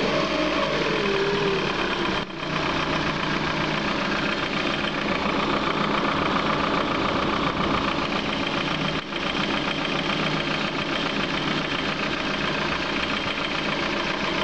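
Lada Priora's 21126 1.6-litre 16-valve engine idling with a knock coming from inside the engine, whose cause the owner cannot work out.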